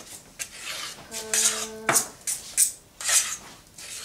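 Utensil stirring and scraping thick banana cake batter against the sides of a stainless steel pot, in rough strokes about twice a second. About a second in, a steady tone holds for nearly a second and ends with a sharp knock.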